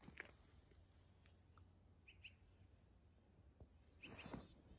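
Near silence in a pine forest, with a few faint, short bird chirps. About four seconds in comes a brief rustle as a large dog moves close to the microphone.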